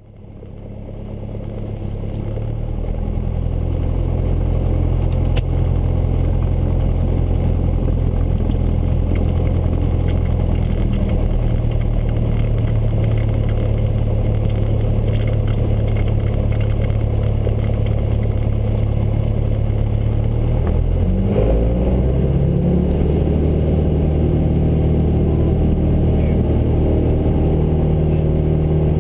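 Single-engine Cessna's piston engine and propeller running at low taxi power, a steady drone that fades in over the first few seconds. About twenty seconds in the engine note shifts as the power changes, then holds steady again.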